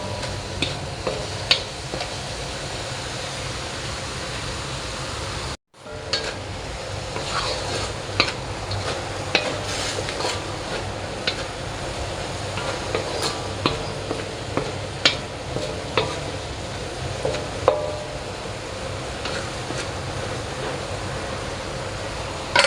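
Fried noodles being stir-fried in a pan: a steady sizzle with irregular taps and scrapes of a utensil against the pan, broken once by a momentary gap.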